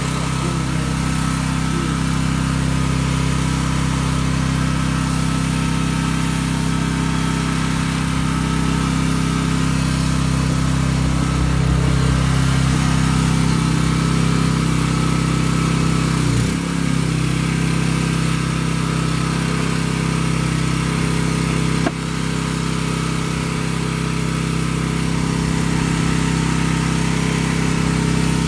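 Engine of a high-flow hydraulic pump power pack running steadily under load, driving a pipe-bursting puller. There is a brief dip in its note just past halfway, and a sharp click about three-quarters of the way through.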